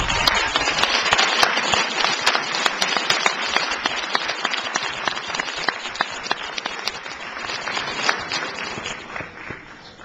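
Audience applauding, the clapping dense at first, then thinning and dying away near the end.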